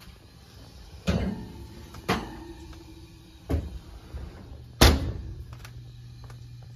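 Oven door opened with a clunk, a metal loaf pan set down on the wire oven rack with a short metallic ring, another knock, then the oven door shut with the loudest bang near the end. A low steady hum runs underneath.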